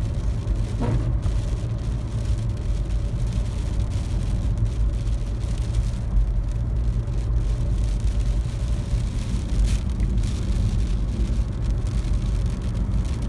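Car cabin noise while driving: a steady low drone of the engine and tyres on the road.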